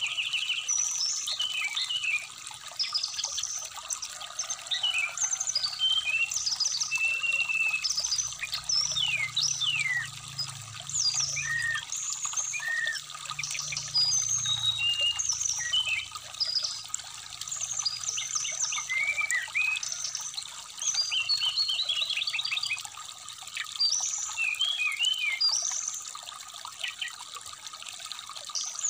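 Brown-chested jungle flycatcher singing a busy, varied run of short high notes and quick slurred whistles over the steady trickle of a shallow stream.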